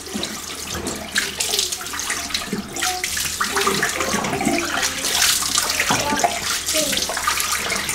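Tap water running steadily, splashing irregularly as a head is rinsed under it.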